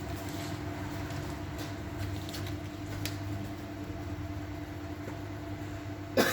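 Small electric pump of a radiator-flushing unit running with a steady hum as it circulates flushing fluid through a car's heater core. A single sharp clack near the end.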